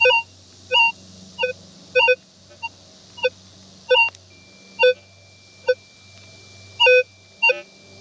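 Minelab Vanquish 540 metal detector giving about a dozen short, unevenly spaced beeps as its coil sweeps back and forth over a rock. The rock itself is setting the detector off, a false signal from a mineralised 'hot rock'.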